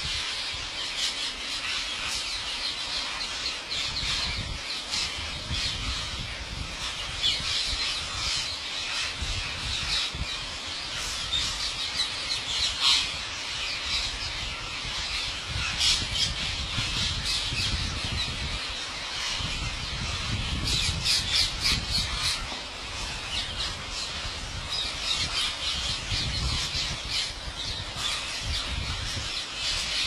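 A huge flock of green parakeets screeching and squawking together: a dense, unbroken din of overlapping shrill calls that swells louder at moments.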